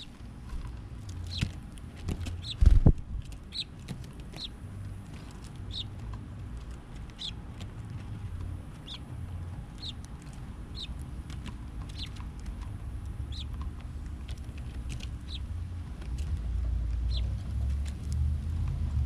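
A small bird giving short, high chirps, about one a second, over a low rumble. A single loud thump comes about three seconds in.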